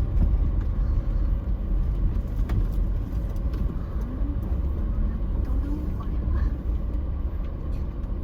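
Low road and engine rumble inside a car's cabin while driving, easing off gradually as the car slows.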